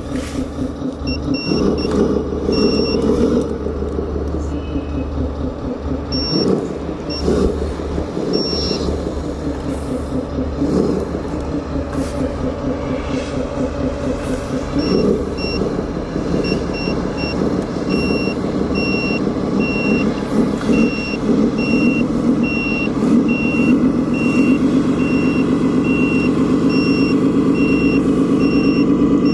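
RC model trucks running, their sound modules playing diesel engine noise, with a reversing beeper sounding in short runs early on and steadily from about halfway through, a little under two beeps a second. Scattered knocks and clicks come from the models working.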